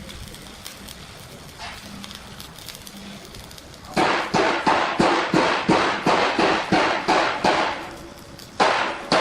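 Hammer blows on steel, about three a second, each leaving a short metallic ring. They start about four seconds in, pause briefly near the end, then resume.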